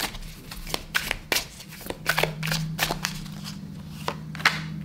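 A deck of tarot cards being shuffled by hand: an irregular run of crisp card snaps and slides.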